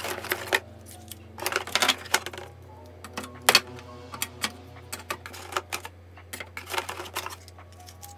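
Plastic Stabilo Boss highlighters clacking against each other and being dropped into a clear acrylic organizer: irregular sharp clicks and clatters, the loudest about three and a half seconds in.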